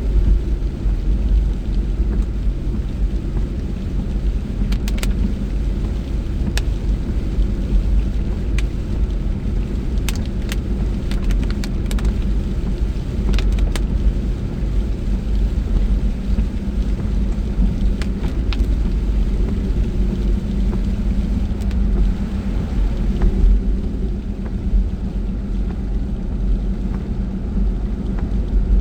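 Car road noise heard from inside the cabin while driving: a steady low rumble of engine and tyres, with scattered sharp ticks.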